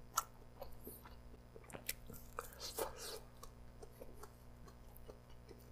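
Faint close-up chewing of grilled chicken pulled off a wooden skewer, with scattered small mouth clicks and wet smacks.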